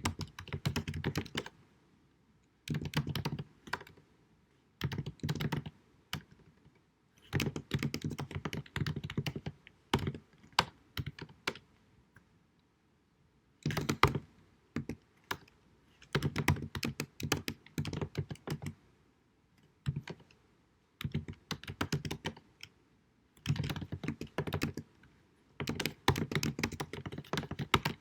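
Typing on a computer keyboard, rapid key clicks in bursts of a second or two with short pauses between, the keystrokes carrying a dull thud underneath, recorded at deliberately low sound quality.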